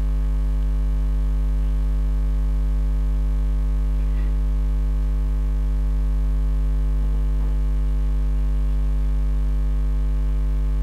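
Steady electrical mains hum on the recording: a constant low buzz made of a stack of steady tones, with a couple of faint brief sounds about four and seven seconds in.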